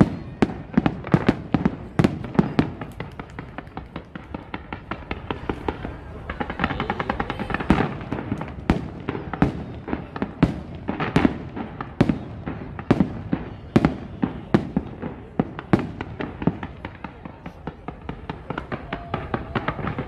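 Fireworks display: aerial shells bursting in an uneven string of bangs, several a second, without a break.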